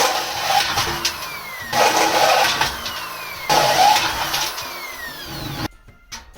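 Electric power tool running in three bursts of about two seconds each, a noisy whine with a slight falling pitch, cutting off abruptly near the end.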